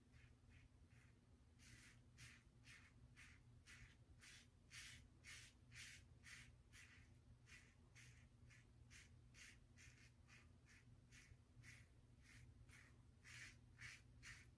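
Double-edge safety razor with a Gillette 7 O'Clock Sharp Edge blade scraping through lathered stubble on an across-the-grain pass: faint, short scratchy strokes, about two a second.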